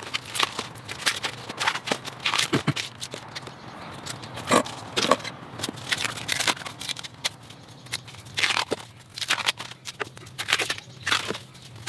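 Husks being torn and stripped off fresh bamboo shoots by hand, a dense run of irregular crackling and tearing.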